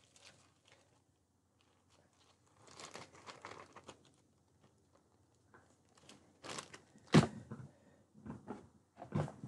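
Soft crinkling of a small clear plastic pouch being handled, then a few short knocks and rustles, the sharpest about seven seconds in, as things are moved about in a cardboard box.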